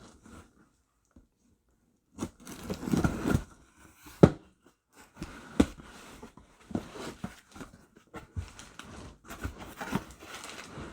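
A cardboard shipping box being torn open by hand, then its crumpled newspaper packing rustled as it is pulled aside, with a couple of sharp knocks from the box.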